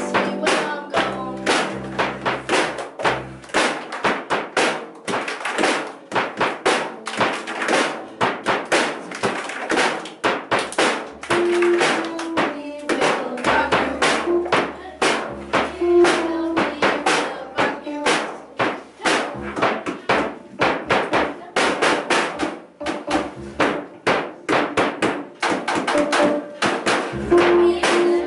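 Live music played on keyboard, with held pitched notes over a fast, steady rhythm of sharp percussive taps.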